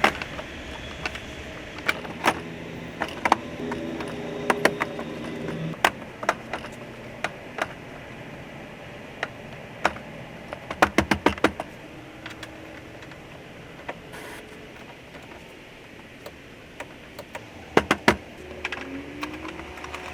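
Scattered clicks, taps and light metallic rattles of tools and plastic trim pieces being handled as the rear door trim is refitted, with a quick run of sharp clicks about eleven seconds in and again near the end.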